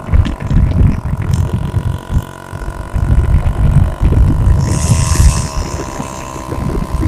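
Bajaj M80's small two-stroke single-cylinder engine running, with a loud, uneven low rumble like wind buffeting the microphone. The engine note shifts pitch about five seconds in.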